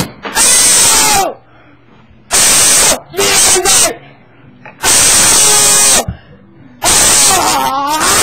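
A person's voice making loud, distorted growling and shrieking noises right at the microphone, in a series of bursts of about a second each with quiet gaps between, the pitch bending within each burst.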